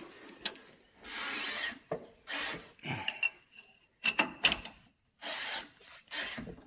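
Hand-tool work on an engine: a series of separate rubbing, scraping strokes of about half a second each, with a few sharp metallic clicks around the middle.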